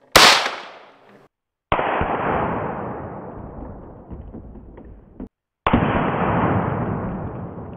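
A single AR-style rifle shot, a sharp crack that rings off over about a second. Then two slowed-down replays of the shot hitting a plate of bullets set in a clear casting: each is a sudden, muffled, drawn-out boom that fades over several seconds, the second one coming about four seconds after the first.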